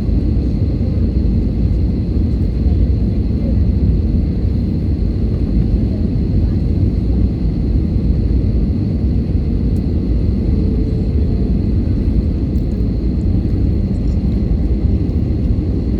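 Airbus A320 cabin noise: a steady low rumble of the engines and airflow heard from inside the passenger cabin, with a faint high steady whine above it.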